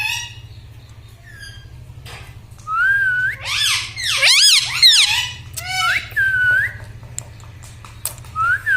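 Pet parrot making a run of shrill, gliding whistled calls about a third of the way in, with a shorter call near the end, over a steady low hum.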